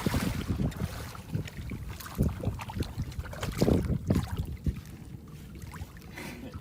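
Wind buffeting the microphone on a small boat, with water sloshing against the hull in uneven gusts; the loudest bump comes about three and a half seconds in.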